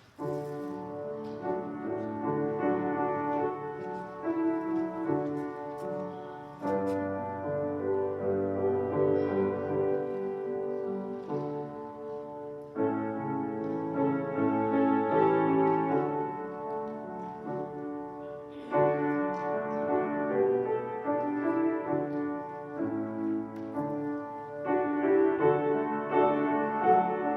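Instrumental church postlude played on a keyboard: slow, sustained chords that change in phrases of about six seconds.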